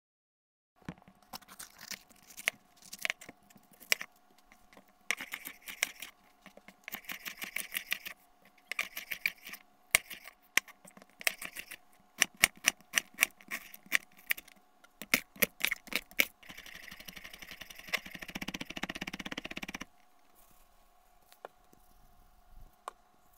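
Chef's knife cutting an onion on a wooden cutting board: sharp, irregular knocks of the blade on the board, often in quick runs, with soft rustling between them. Near the end a steady hiss lasts about three seconds.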